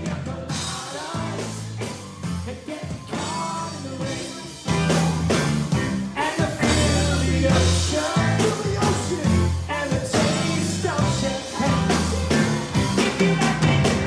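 Rock music with singing, drums and bass; it gets louder about five seconds in.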